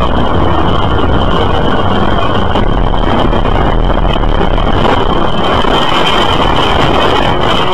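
Loud, steady rushing noise of a vehicle on the road, picked up by a dashcam, with a thin steady high whine over it.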